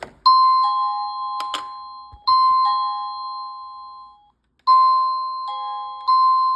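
Plug-in wireless doorbell chime unit with 60 selectable tones playing an electronic two-note ding-dong, high note then low, twice, then a different multi-note chime tune from a little under five seconds in. Two short clicks sound over the first ding-dong.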